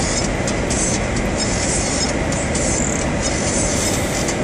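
Steady road and wind noise inside the cabin of a moving car.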